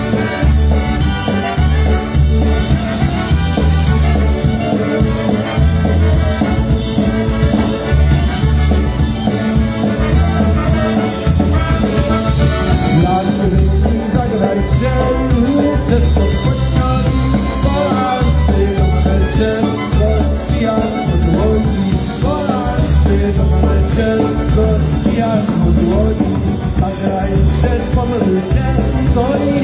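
A live polka band with brass plays a tune over a steady bass beat during its sound check.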